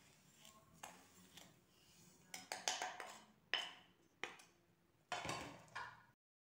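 Wooden spatula scraping granulated sugar off a ceramic plate into a glass bowl, as a run of short, soft scrapes and light knocks of dishware.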